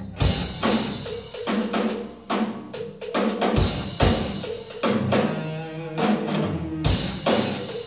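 Rock band playing live, led by a drum kit beat of bass drum, snare and cymbal hits several times a second, with low bass notes held underneath.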